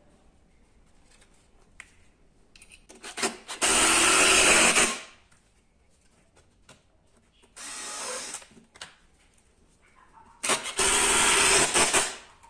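Power drill run in bursts: two long runs of about a second and a half with a shorter, quieter one between, each loud run preceded by brief trigger taps.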